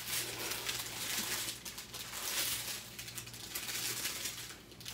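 Thin plastic packaging and strips of small zip bags of diamond-painting drills crinkling as they are handled, in irregular uneven bursts.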